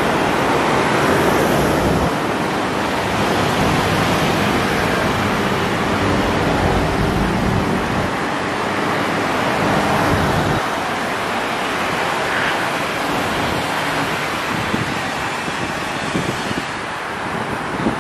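Steady rushing noise with a deep rumble under it that drops away suddenly about ten seconds in, leaving a lighter hiss.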